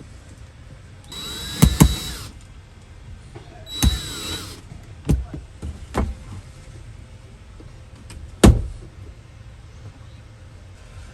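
A small electric motor runs in two short whirring bursts, each lasting about a second and changing speed as it spins up and down. A few sharp clicks or knocks follow, the loudest about eight and a half seconds in.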